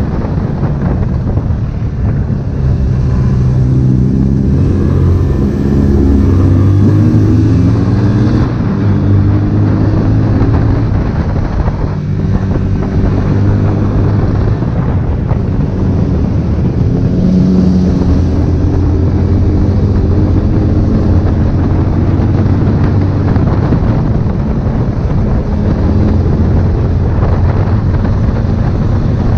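Honda CB1000R inline-four engine running under way, its pitch climbing and dropping again several times as the bike accelerates through the gears and eases off, with wind rushing over the microphone.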